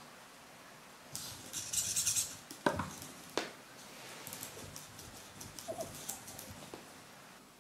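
Living AI EMO desk robot stirring on a wooden tabletop: a short high hiss about a second in, two sharp clicks, then light ticks and taps and a brief electronic chirp.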